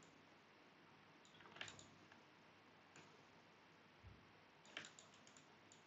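Faint clicking of a computer mouse and keyboard: small clusters of clicks about a second and a half in and again near the end, a single click around three seconds, and a soft low thump about four seconds in.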